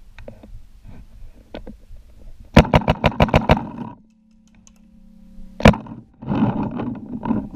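Paintball marker firing a rapid burst of about eight shots in roughly a second, then a single loud shot a couple of seconds later, followed by a stretch of louder rough noise from the game.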